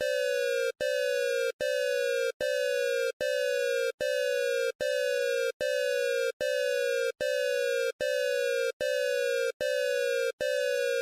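Emergency alert (EAS-style) alarm tone, presented as Colombia's: a buzzy tone that slides slightly down in pitch, repeated about every 0.8 seconds with a short click-like break between beeps.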